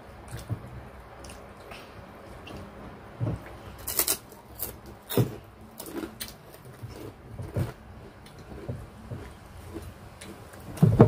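Two people eating rice and smoked fish with their fingers: chewing and lip smacking, with scattered clicks of fingers and food against plates, a few sharper ones about four and five seconds in. A low steady hum lies underneath.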